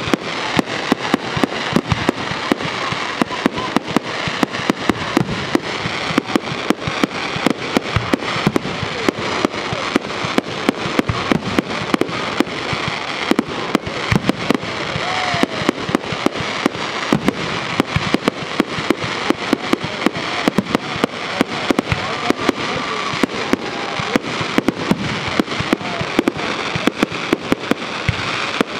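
Aerial fireworks with crackling stars: a continuous dense crackle of sharp pops, several a second, over a steady hiss.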